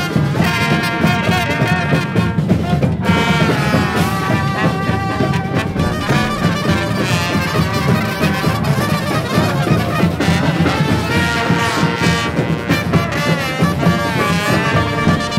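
Street brass band playing live: several horns, trumpet and trombone among them, sounding in harmony over a steady beat.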